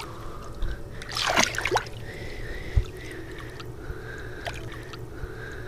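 Pond water sloshing and splashing around a hand holding a catfish at the surface, with a short burst of splashing about a second and a half in.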